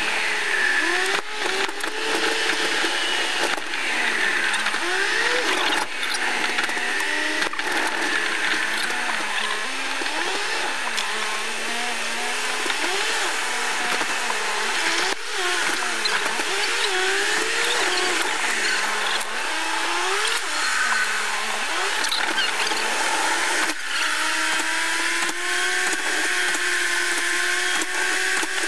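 Car engine and road noise heard inside the cabin while driving. The engine's pitch rises and falls with the throttle and holds steady in the last few seconds, with a few light knocks from bumps.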